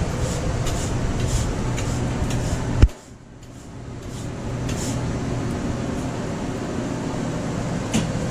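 Steady machine hum in a food-truck kitchen. A single sharp knock comes about three seconds in, after which the hum drops away briefly and swells back up.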